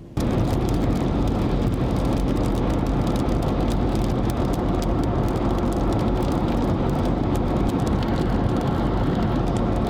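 Steady noise of a car driving, starting abruptly and running evenly, with a dense scatter of small ticks on top.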